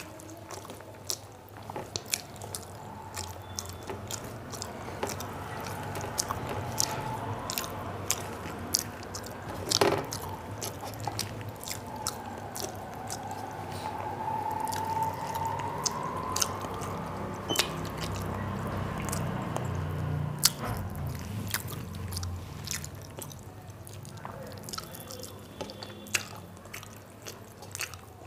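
A person chewing mouthfuls of rice and curry, with frequent small wet clicks and smacks of the lips and tongue.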